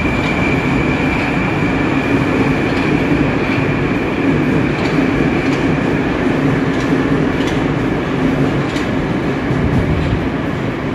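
Moscow-2019 metro train pulling out of the station past the platform: a steady rumble of wheels and running gear with a steady high whine, and light regular clicks about every two-thirds of a second, easing a little near the end as the last car goes by.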